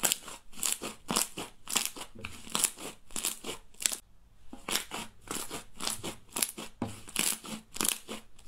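Hands squeezing and kneading thick slime, giving quick runs of crackling, squishing pops as air pockets burst, with a brief pause about four seconds in.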